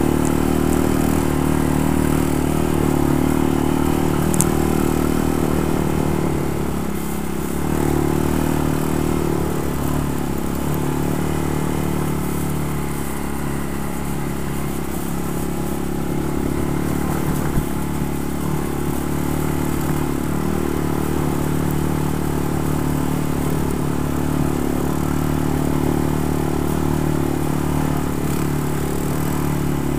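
ATV engine running at a steady, even speed, easing off slightly around seven seconds in. Two brief clicks stand out, one about four seconds in and one around seventeen seconds.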